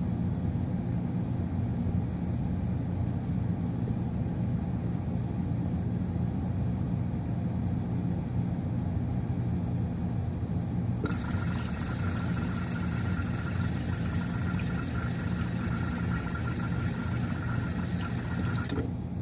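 Water hissing into a modular ice maker's mold as the fill comes on during its cycle, over a steady low hum. The fill starts a little past halfway and cuts off suddenly near the end, a sign that the water supply to the ice maker is working.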